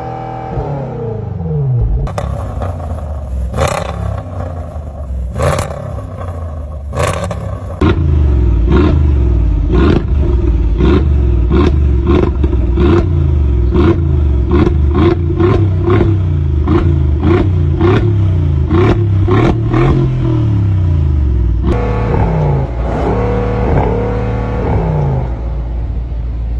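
High-performance car exhausts being revved, in a run of clips from different cars: first a few revs with sharp cracks, then a long string of quick rev blips about once a second, then another engine revving near the end.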